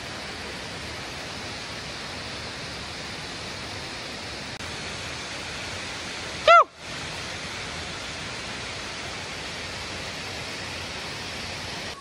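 Steady rushing of a three-tiered waterfall. About halfway through, one brief high-pitched call arches up and down in pitch, and the rush drops out for a moment just after it.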